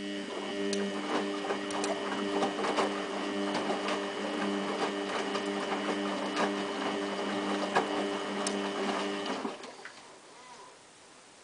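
Samsung WF8804RPA washing machine's drum motor turning the drum in a rinse tumble: a steady motor whine with a scatter of clicks, starting at once and stopping about nine and a half seconds in.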